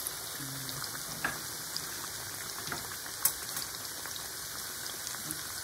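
Goat meat sizzling in hot oil in a frying pan: a steady crackling hiss with a few sharp pops.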